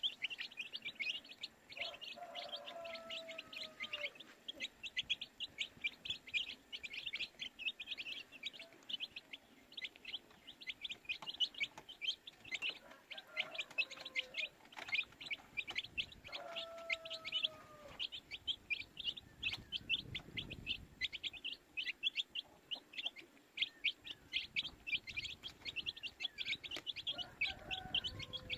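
A group of baby chicks peeping non-stop, many quick high chirps overlapping several times a second. A lower, drawn-out call cuts in a few times.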